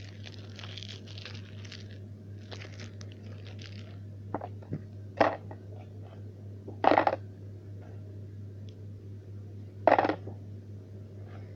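Crinkling and rustling of something being handled, then three separate sharp knocks spread over several seconds, over a steady low hum.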